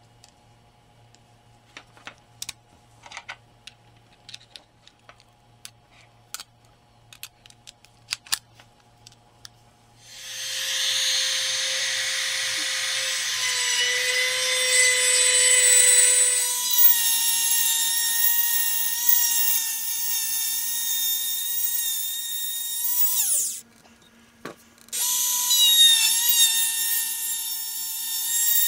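Small metal clicks and taps as a bit is fitted into a Bosch Colt palm router's collet, then the router starts about ten seconds in and runs with a high whine as it trims the edge of stacked wooden leaf cutouts. It stops briefly a little before the end and starts again.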